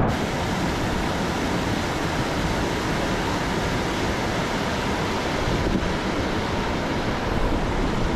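Fast-flowing mountain beck rushing over rocks in white-water rapids, a steady full rush of water, with wind buffeting the microphone underneath.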